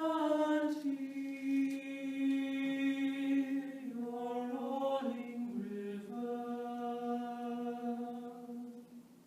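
All-male a cappella group singing a slow folk tune in close harmony: long held chords that shift about four and six seconds in and fade out near the end.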